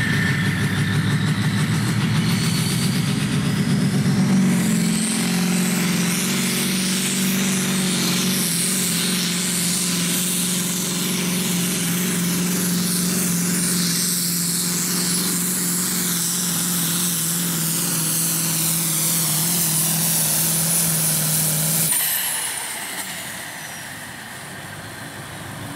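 Modified pulling tractor's turbocharged V8 engine running hard at steady high revs, with a high turbo whine above it. About 22 seconds in the throttle closes: the engine note drops away and the turbo whine falls in pitch as it spools down.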